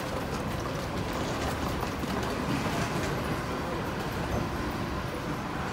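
Car driving at speed, with steady road and tyre noise.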